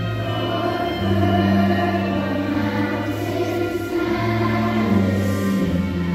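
A large children's choir singing together over an instrumental accompaniment, with held bass notes that step to a new pitch every second or two.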